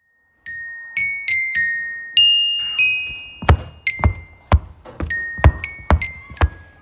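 A slow melody of bright, bell-like mallet notes, like a glockenspiel or celesta, each note ringing out and fading. From about halfway, sharp knocks or taps sound between the notes, several per second.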